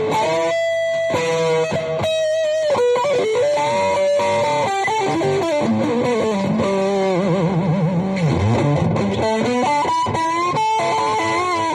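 Epiphone EM-2 Rebel electric guitar played in sustained single-note lead lines, with string bends and wide vibrato held on long notes through the middle.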